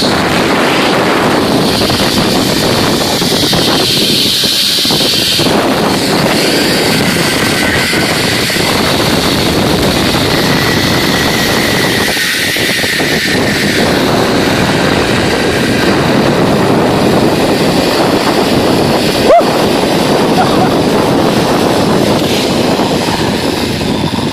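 Zip line trolley running fast along its steel cable, a loud steady rush of wind on the microphone with a high whine from the pulley wheels that comes and goes. There is a sharp click about 19 seconds in.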